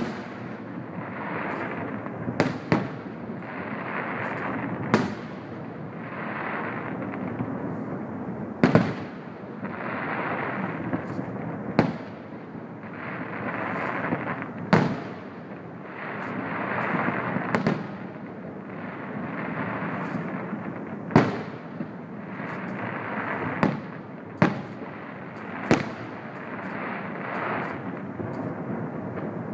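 Aerial firework shells bursting in a display: sharp bangs come every one to four seconds, with a rough hiss swelling and fading between them.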